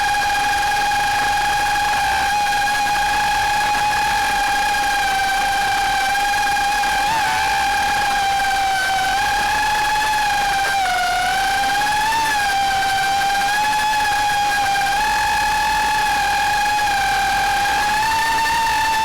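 Quadcopter drone's motors and propellers whining steadily in flight, the high pitch wavering briefly up and down a few times as the drone adjusts.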